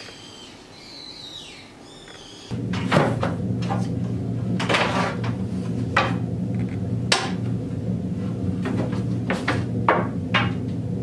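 Faint chirping whistles, then from about two and a half seconds in a steady low hum with wooden boards knocking and clattering as they are pulled from a lumber rack.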